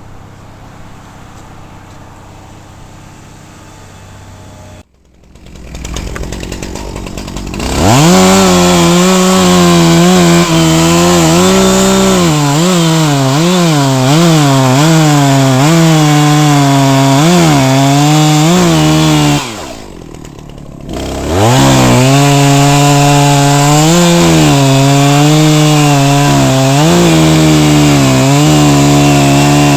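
Two-stroke chainsaw revved up to full throttle about a quarter of the way in, its pitch wavering as it bogs under load while cutting wood. It eases off briefly past the middle, then runs at full throttle again. Before it starts there is a quieter steady rumble.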